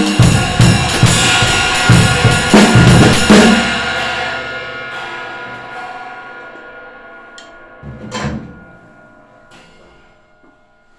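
Acoustic drum kit played in a fast run of drum and cymbal hits for about three and a half seconds, after which the cymbals ring on and slowly fade. A single low drum hit comes about eight seconds in, with a light cymbal tap shortly after.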